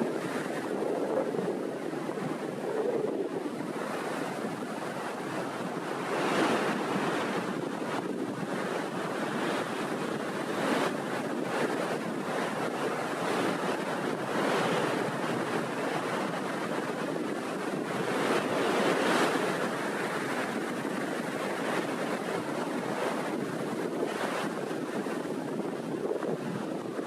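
Sea waves breaking and rolling onto the shore in a steady wash, with a swell of surf every few seconds. Wind buffets the microphone throughout.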